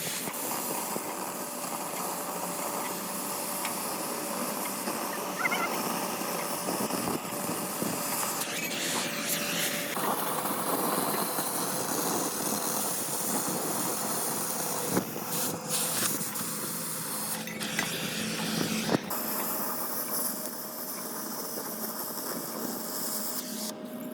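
Steady workshop machine noise with a constant faint hum, broken by a few sharp clicks and knocks.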